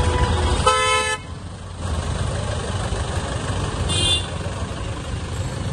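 Steady street traffic rumble, with a vehicle horn honking once briefly about a second in and a shorter, higher-pitched beep about four seconds in.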